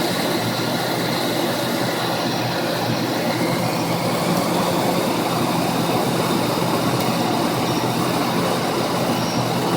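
Ford Mustang GT 5.0 V8 idling steadily. The engine has a random misfire and runs rich, which new plugs, wires, cap, rotor, coil and TFI module have not cured.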